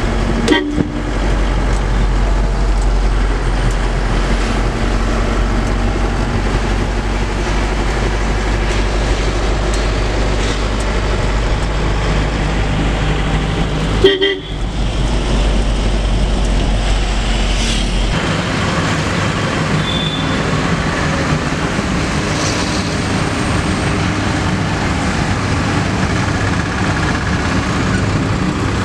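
Force Traveller ambulance on the move: steady engine and road noise heard from inside the cab, with short horn toots near the start and about fourteen seconds in. About eighteen seconds in the deep drone drops away and street traffic noise takes over.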